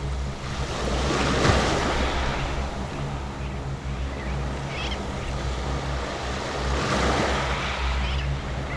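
Small waves washing up and running back on a sandy beach, with a swell of surf about a second in and another around seven seconds. A steady low rumble of wind on the microphone sits underneath.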